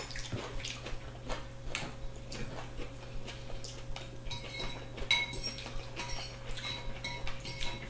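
Forks and spoons clicking and scraping against bowls and plates as two people eat, in irregular light taps, a few of them ringing briefly. A faint steady hum lies underneath.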